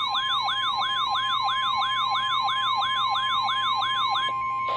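Electronic siren-style alert from a weather radio receiver, yelping up and down about three times a second, over the steady 1050 Hz NOAA Weather Radio warning alarm tone that announces an incoming warning. The siren stops a little before the tone does.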